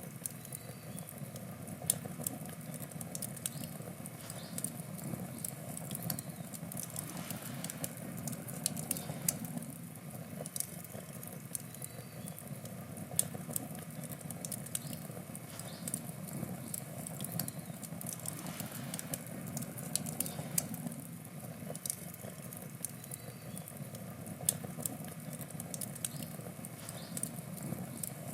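Wood fire burning: a steady low rush with frequent small, sharp crackles and pops from the burning wood.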